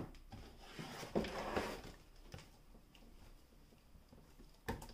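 Cardboard box being handled and turned over on a wooden floor: a short scraping rustle about a second in, then sharp knocks near the end.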